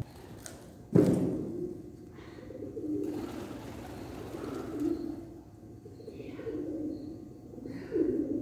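A single heavy thud about a second in, as a rider jumps off a mini trampoline onto a bareback horse. Pigeons coo repeatedly after it, a low call every second or so.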